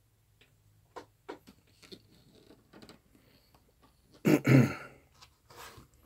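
A few faint, sharp clicks, like handling and button presses on bench test equipment, then a louder, short burst of rustling or handling noise about four seconds in.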